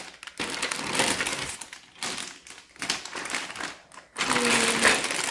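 Clear plastic bags full of small plastic toy parts crinkling and rustling as they are handled and lifted out of a cardboard box, in irregular crackly bursts.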